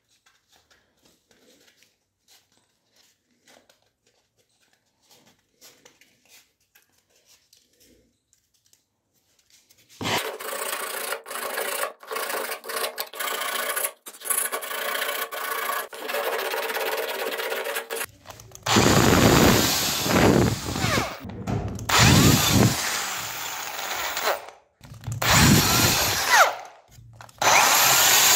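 For about the first ten seconds, near silence with faint handling clicks. Then a small wooden block is rubbed back and forth on sandpaper in strokes, harder and louder from about eighteen seconds in. Near the end a drill press motor starts running steadily.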